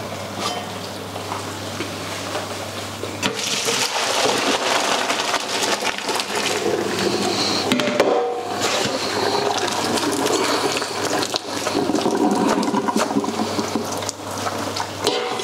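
Hot pasta water poured from a big pot into a colander in the kitchen sink: a continuous splashing rush that grows louder about three seconds in as the pasta is drained.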